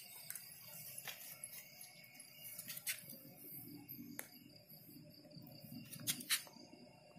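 Faint steady high-pitched ringing with scattered sharp clicks and taps, about six in all, the loudest two close together near the end.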